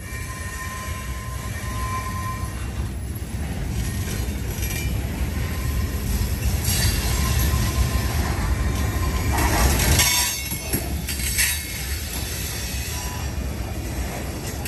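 Freight train cars rolling past: a steady low rumble of steel wheels on the rail, with brief high-pitched wheel squeals about seven and ten seconds in.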